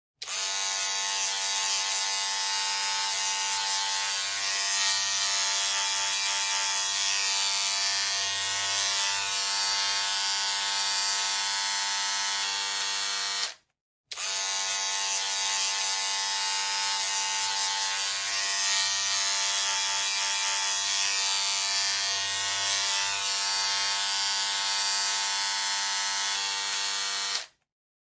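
Electric hair clipper buzzing steadily with a rich, even hum. It cuts off briefly about halfway through, then starts again and buzzes the same way until it stops near the end.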